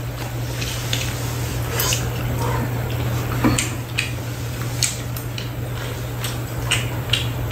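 Spoons and chopsticks clinking against bowls on a metal tray in scattered light clicks, with chewing, over a steady low hum.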